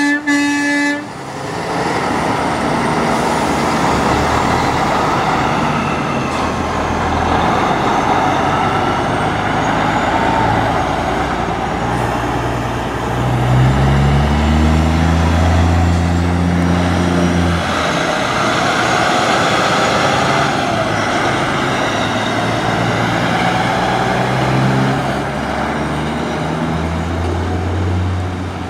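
Diesel semi trucks pulling away and accelerating past, their engine note rising in pitch and then holding several times. A truck's air horn blast stops about a second in.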